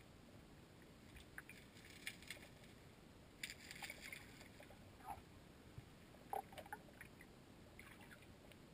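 Faint underwater creek sound picked up by a submerged camera: a low, steady water rumble with scattered small clicks and crackles. There is a cluster of crackles about three and a half seconds in and a few short bubbly blips around five and six seconds.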